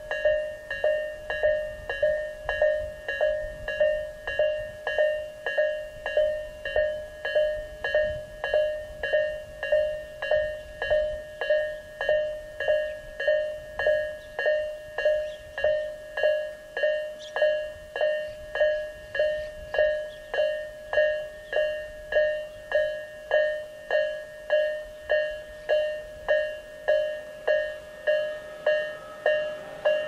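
Japanese electronic level-crossing warning bell of the Tobu Isesaki Line type, in its slightly lower-pitched, slower variant, ringing in evenly spaced dings, each struck and then dying away, about three every two seconds.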